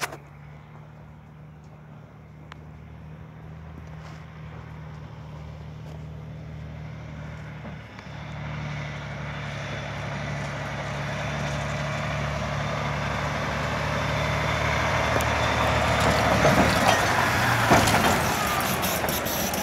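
A Freightliner tandem-axle truck tractor's diesel engine running as the truck drives over a dirt yard, growing steadily louder as it approaches, with a brief break in the engine note about eight seconds in. The noise swells loudest as the tractor passes close by near the end.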